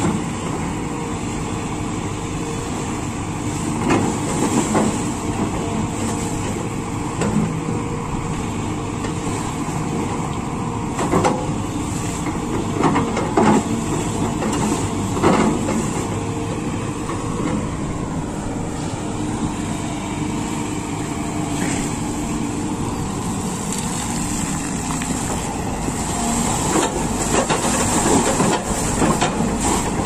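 SANY SY140C tracked excavator's diesel engine running steadily, with bouts of splashing water as its bucket and tracks churn the river and a few short louder knocks.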